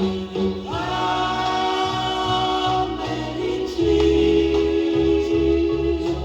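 Music with singing: long held vocal notes over a steady bass line.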